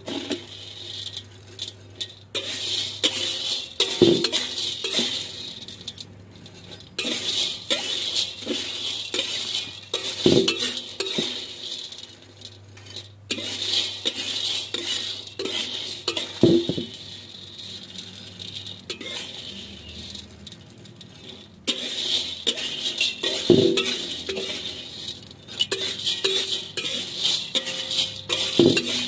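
Metal spatula stirring and scraping dry fish-feed pellets around a metal wok as they are dry-roasted, the hard pellets rattling and clinking against the pan. A heavier scrape comes about every six seconds.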